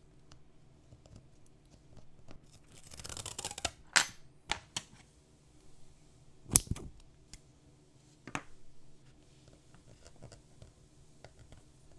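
Masking tape pulled off its roll with a short rasping rustle about three seconds in, then a few sharp clicks and taps of metal tweezers and a hobby knife handled on a cutting mat, the loudest about four and six and a half seconds in.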